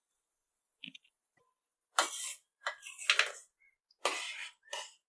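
A metal spoon scraping and clinking against the sides of a stainless steel pot as soup is stirred, in a few short bouts over the second half.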